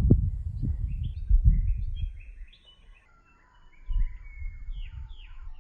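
Birds chirping, with short rising and falling notes scattered throughout. Under them, a low rumble of wind buffeting the microphone makes up the loudest part; it dies away in the middle and returns about four seconds in.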